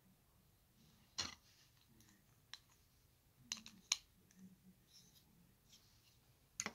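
Plastic LEGO bricks clicking as they are handled and pressed together: a handful of short, sharp clicks at irregular spacing, the loudest about a second in, near four seconds and near the end.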